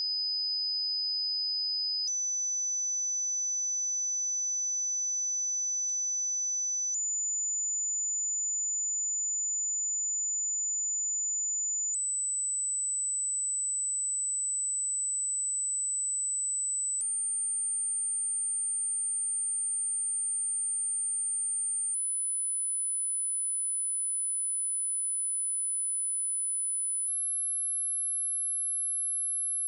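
Pure sine-wave hearing-test tones, each held steady, stepping up in pitch about every five seconds. They climb from 5,000 Hz through 6,000, 7,000, 8,000, 9,000 and 10,000 Hz to 11,000 Hz, which starts near the end.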